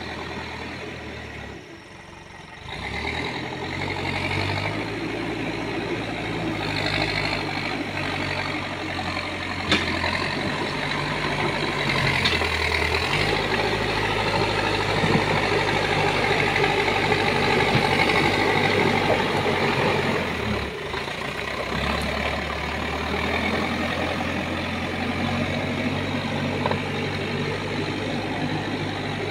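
Backhoe loader's diesel engine running under load as it works its front bucket through soil and gravel, the engine note dropping and rising several times. The scrape of stones in the bucket runs beneath it, with a few sharp clicks.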